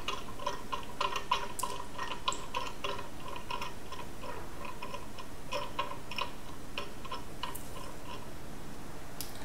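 Ratcheting wrench clicking in quick runs, about four clicks a second at first, then sparser, as the adjustment bolt on a pressure washer's pump mounting plate is backed out.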